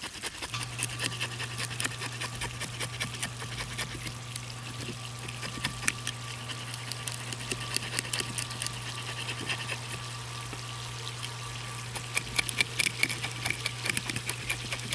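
Fish scaler scraping scales off a small bream in quick, scratchy strokes. Under it a camp water pump hums steadily, coming on about half a second in.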